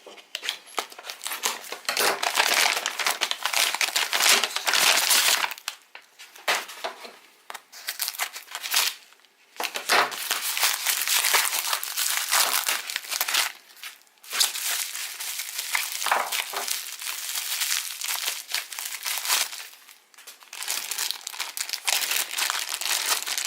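Packaging wrapping being crinkled, crumpled and pulled off a watch by hand, in long crackling stretches with short pauses between them.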